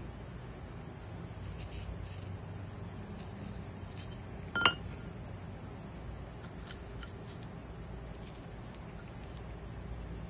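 A steady high-pitched hiss with a few faint ticks, and one sharp ringing clink of glass or metal about halfway through, small contacts between the soldering tools and the glass bevel being soldered.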